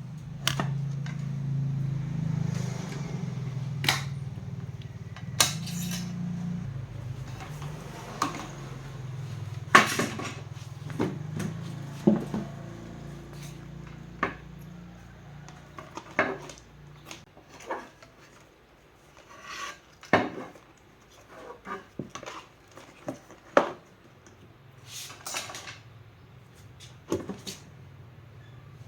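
Small metal tools and parts clinking and knocking at irregular intervals during hands-on repair work, over a low steady hum.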